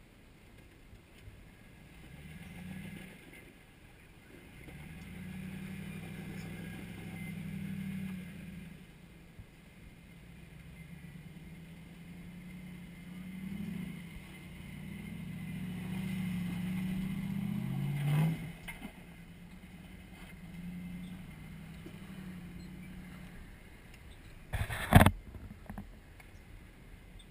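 Jeep engine crawling over rock ledges, revving up and easing off in several pulls, with one climb in revs that cuts off sharply. Near the end comes a loud double knock.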